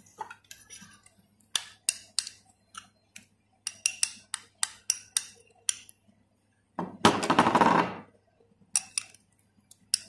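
Metal spoon clinking and tapping against a small glass bowl as ginger-garlic paste is scraped out onto a steel platter, in many quick separate clicks. A louder rasping scrape lasting about a second comes around seven seconds in.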